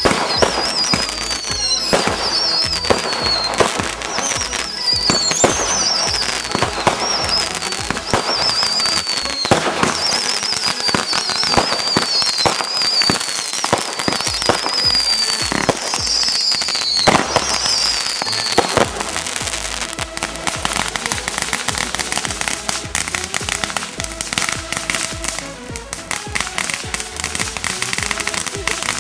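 Consumer fireworks going off: a run of wavering whistles, each falling in pitch, about one a second among sharp bangs. A little past halfway they give way to a dense, steady crackle.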